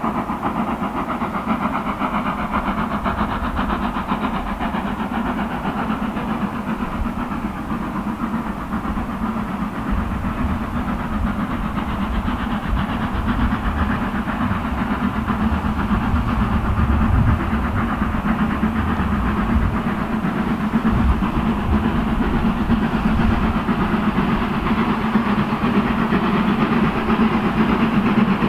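LSWR S15 steam locomotive working a train in the distance, its chimney exhaust and running noise a steady sound that slowly grows louder as it approaches.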